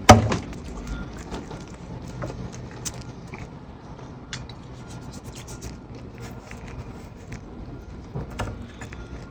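A sharp knock right at the start, then scattered light clicks and rubbing of gloved hands pressing epoxy putty into the cracks of an old wooden console, over a faint low hum.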